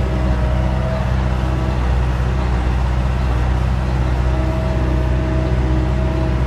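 Tractor engine running steadily under load, heard from inside the cab, as it pulls an Elibol small square baler working through meadow hay. A faint high whine comes and goes over the drone.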